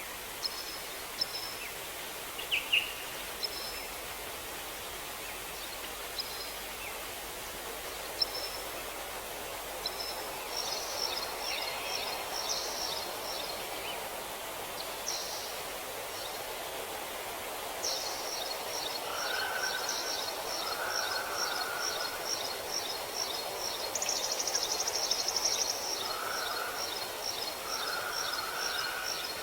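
Forest ambience of songbirds over a steady rushing background: scattered short high chirps at first, then, from a little past halfway, a fast run of repeated high notes, joined by lower short calls and a louder buzzy trill.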